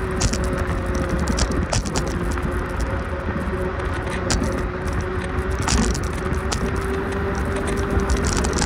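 A vehicle on the move: a steady low rumble with a constant whine that drifts slightly in pitch, and frequent light rattles and clicks.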